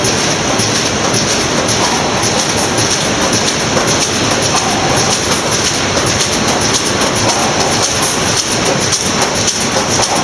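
Steel-sheet processing line with a rotary shear running: a loud, steady mechanical noise with continuous light clatter from the rollers and moving sheet.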